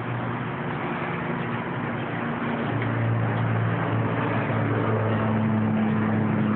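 A steady low engine hum with a constant noisy background, the hum growing louder about three seconds in.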